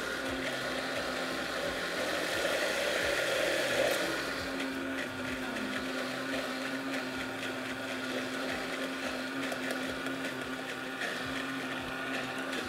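A high-powered countertop blender running, churning a thick, creamy avocado and cacao shake. It is busier and louder for the first four seconds, then settles into a steady motor hum.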